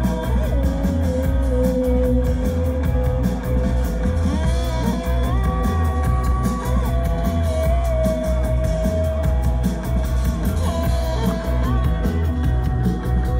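Live rock band playing loud: long held, bending guitar notes over heavy bass and drums with a fast steady cymbal beat.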